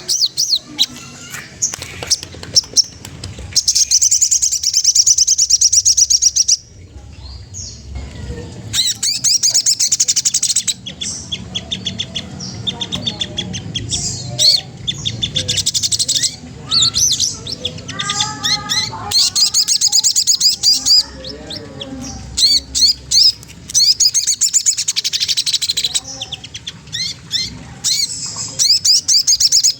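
Sogon trotol, a songbird kept by Indonesian bird fanciers, singing rapid high chirping trills in bursts of a few seconds, with a few lower notes about two thirds of the way through. It is a challenging song meant to provoke other birds into singing.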